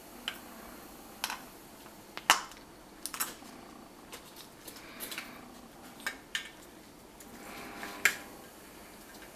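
Irregular sharp clicks and taps of gloved hands handling a gas mask's metal-fitted drinking canteen, its coiled metal hose and the rubber mask. About a dozen small knocks, with a louder clack about two seconds in and another near the end.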